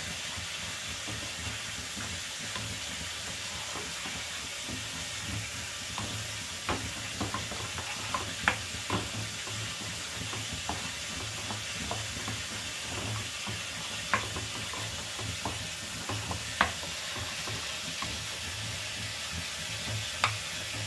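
A spoon stirring a thick yogurt-and-ground-spice marinade in a plastic bowl, with scattered sharp clicks of the spoon against the bowl. Behind it runs a steady sizzle of chicken frying in oil.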